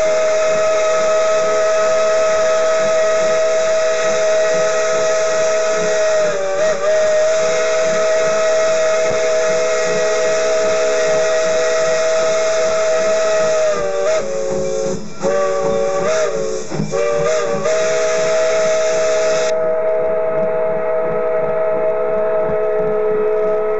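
Steam locomotive whistle blown long and loud, sounding a steady chord of several notes that wavers briefly as the cord is eased and pulled again, over a hiss of steam that cuts off near the end.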